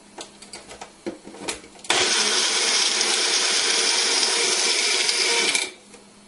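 Small personal blender grinding tomato, onion and spices into a coarse wet paste: the motor starts abruptly about two seconds in, runs steadily for nearly four seconds, then stops. A few light knocks come before it.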